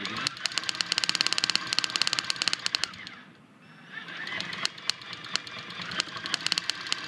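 High-tension spark from a Model K Ford Holley magneto snapping across a wide air gap from its wire lead to a metal disc: a rapid train of sharp cracks that breaks off about three seconds in, then starts again.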